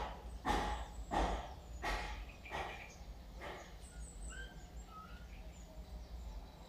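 A run of about five short animal calls, roughly two-thirds of a second apart, each weaker than the last, stopping about three and a half seconds in. Faint short high chirps follow.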